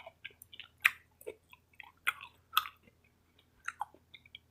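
A person chewing crunchy salad close to the microphone: a run of short, irregular crisp crunches.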